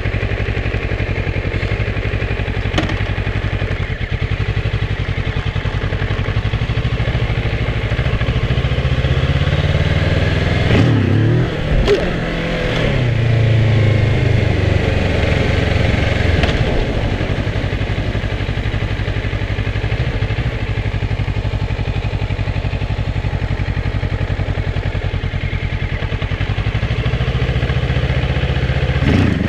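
Kawasaki ER-6f's 649 cc parallel-twin engine running as the motorcycle is ridden, with the revs sweeping up and down about eleven seconds in and again near the end.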